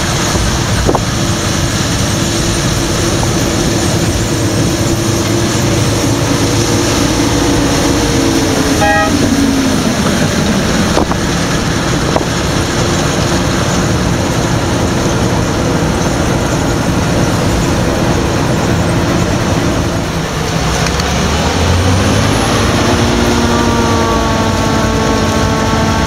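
Claas Lexion combine harvesters working in a rapeseed field, a steady loud drone of diesel engine and threshing machinery. The engine note drops as one machine passes close by about nine seconds in, and another engine note rises near the end.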